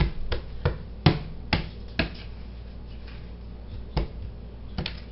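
A toddler's hands slapping and patting a kitchen countertop: six quick slaps in the first two seconds, then a few more near the end.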